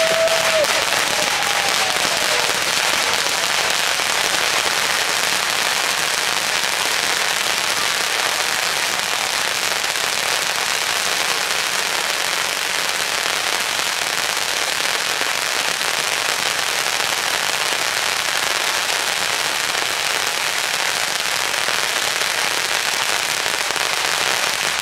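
A brick of thousands of firecrackers going off at once. The bangs come so fast that they merge into one unbroken, dense crackle, steady in loudness throughout.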